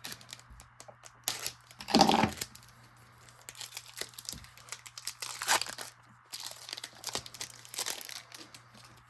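A hockey card pack's wrapper torn open, loudest about two seconds in, followed by intermittent crinkling of the wrapper as it is handled.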